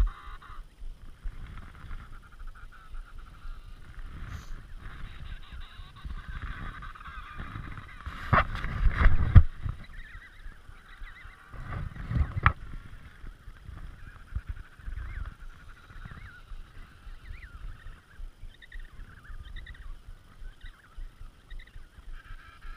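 Emperor penguin colony calling, many high, wavering calls overlapping throughout, over a low, uneven rumble. A louder rumble with a couple of sharp knocks comes about eight to nine seconds in, and another knock near twelve seconds.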